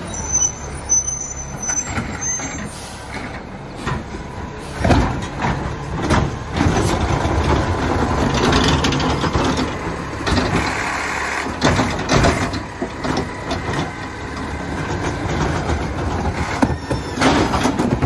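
Battle LET2 McNeilus ZR automated side-loader garbage truck at work: the engine running under a string of sudden hisses and clanks. Near the end the engine begins to rev up.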